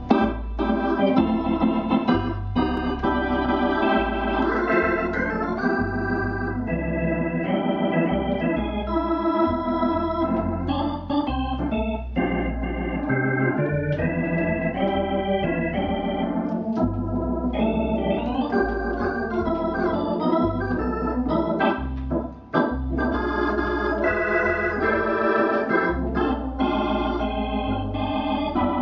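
Hammond X-77 organ played with both hands: sustained chords over a moving low bass line, with a brief break about twenty-two seconds in.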